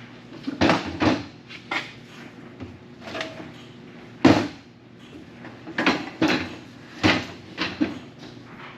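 Irregular knocks and clanks of welding-cart hardware being handled and fitted while a wheel goes onto its axle with bushings, about ten in all, the loudest about four seconds in.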